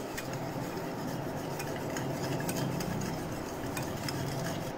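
Wire whisk beating milk and sugar in a glass bowl: steady swishing of the liquid with quick, repeated clicks of the wires against the glass, as the sugar is beaten in to dissolve.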